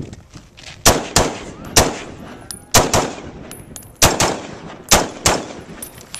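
DPMS LR-308 .308 rifle with an SJC Titan muzzle brake fired rapidly, about eight shots, mostly in quick pairs, over about four and a half seconds. A faint high ringing hangs between the shots.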